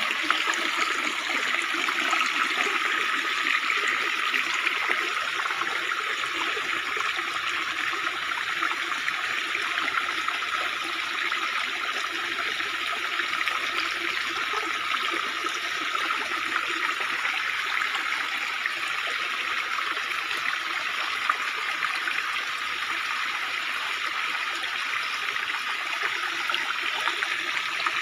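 Shallow stream water running and trickling steadily over rocks, heard close up.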